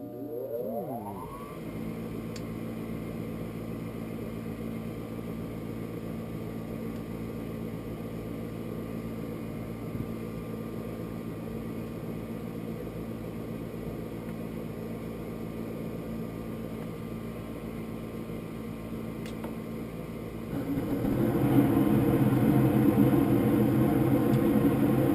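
Furnace starting up. A motor spins up with a rising whine over the first second or so, then settles into a steady hum. About twenty seconds in, a louder steady rushing noise joins it.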